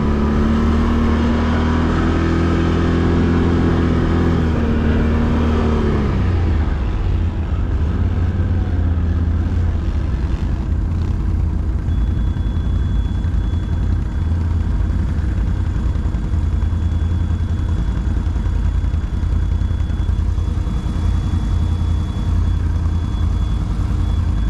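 ATV engine running under way: it revs up about two seconds in, holds, and drops back about six seconds in, then runs steadily at lower revs with a heavy low rumble.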